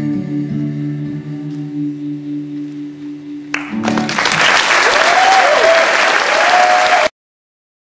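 Final chord on an acoustic guitar ringing out and slowly fading. About four seconds in, audience applause and cheering break out, then cut off suddenly about seven seconds in.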